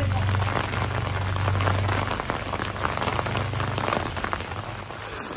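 Steady rain falling on hard surfaces, a dense patter of many small drops, with a low steady hum underneath that fades out about four seconds in.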